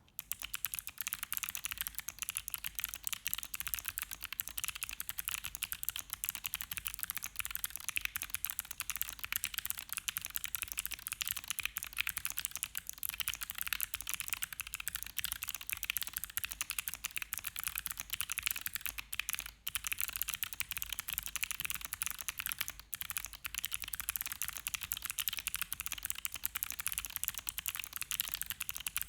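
Continuous fast typing on a stacked-acrylic Primrose Prime E mechanical keyboard with Gateron Melody switches, a thin cork-dampened plate, and ABS keycaps: a dense, steady stream of key clicks, with a couple of very short pauses.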